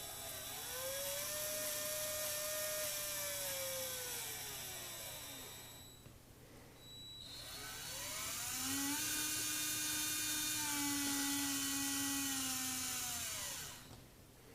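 Toy train's small electric motor whining with a hissing whir, twice. Each time the pitch rises as it speeds up, holds, then falls away as it slows down.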